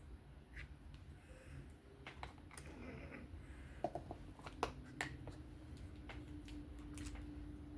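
Sparse small clicks and taps from handling the folding knife's small metal parts and tools during maintenance. The two sharpest clicks come just before and just after the middle.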